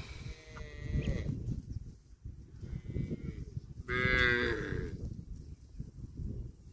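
Cattle mooing: a call about a second long at the start, a faint short call near the middle, and a louder call about four seconds in.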